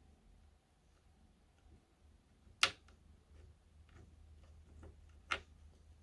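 Small hard items being handled, with two sharp clicks about two and a half and five seconds in and faint light ticking between.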